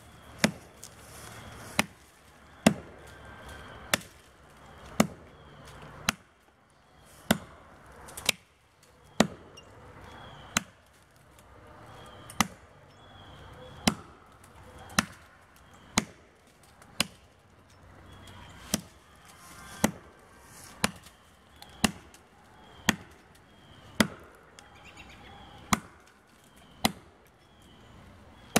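An axe chopping into the trunk of a standing tree, deepening a felling notch. Sharp, steady strokes land about once a second.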